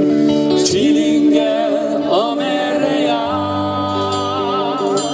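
Live pop band playing with a vocalist singing over drums, guitar and bass; in the second half a sung note is held with vibrato over a steady bass line.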